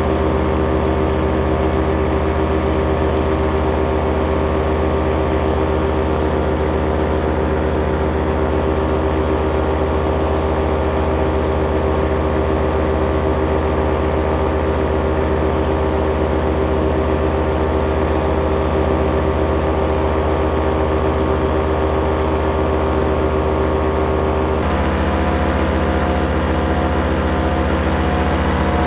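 Paramotor engine and propeller running at steady cruise, an even drone. About 25 seconds in, its tone changes slightly.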